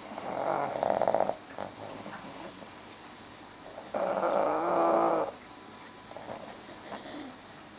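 Sleeping pug snoring: two long, loud buzzing snores, one at the start and one about four seconds in, the snoring typical of the breed's short, flat-faced airway.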